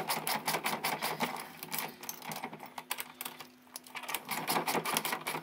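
Socket ratchet clicking in quick runs as the nuts holding the sprocket to its carrier are run up snug, not yet torqued, with a brief lull a little past the middle.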